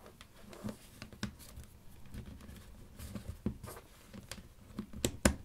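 Test probes being pressed into the clip slots on the back of a Mileseey MC616 multimeter's plastic case: light rustling of the leads and scattered plastic clicks, the sharpest click near the end.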